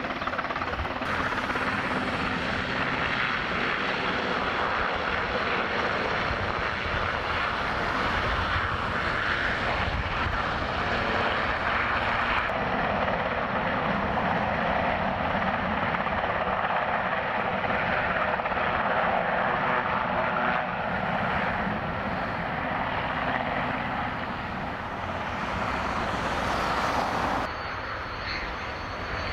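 A large military helicopter's turbine engines and rotor run loud and steady at close range as it hovers low. Near the end a cut brings in the high, steady whine of a BAE Hawk jet trainer's turbofan as it taxis.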